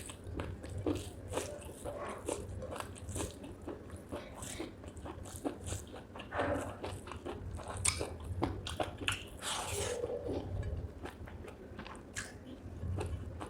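Close-miked chewing and crunching of spicy chicken gizzard with rice: a run of irregular wet bites and crunchy crackles, a little louder twice in the middle.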